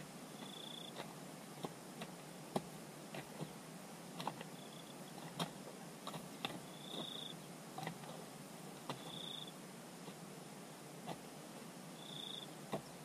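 Short, high, steady-pitched chirps, each about half a second long, repeating every one to three seconds, mixed with scattered sharp clicks and knocks.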